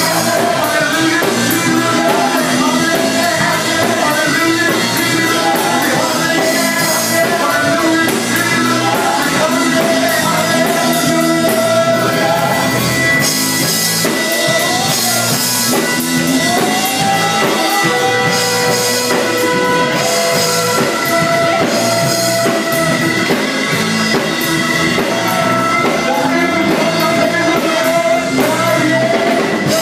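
Live gospel music: a vocal group singing with a live band playing drums, loud and continuous, with long held notes.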